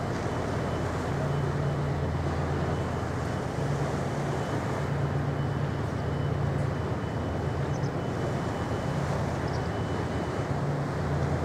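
Wightlink car ferry St Clare passing close by: a steady low drone from its engines over a broad rushing noise, with a faint high whine that stops about nine seconds in.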